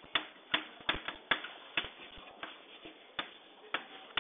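Chalk writing on a blackboard: a run of sharp, irregular taps, about two to three a second, as the letters go down.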